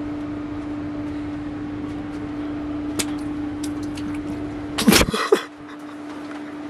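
Steady low electrical hum in a small room, with one sharp click about three seconds in and a loud burst of rustling and knocking near the five-second mark as the camera is handled.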